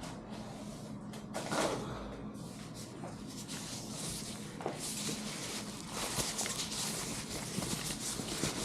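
Rustling and irregular clicks and knocks of small objects being handled, over a faint steady low hum.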